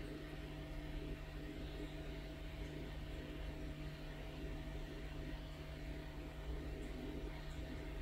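Steady low hum over an even hiss: constant background room noise, unchanging throughout.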